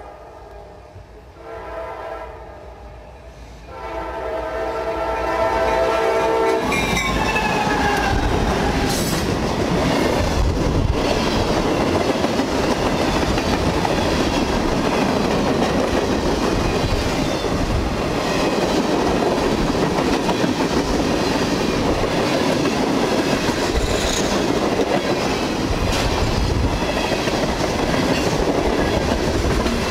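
Diesel freight locomotive's air horn sounding in blasts as it approaches, getting louder, with its pitch dropping as the locomotive passes about six or seven seconds in. Then a steady loud rumble and clatter of freight cars rolling past on the rails.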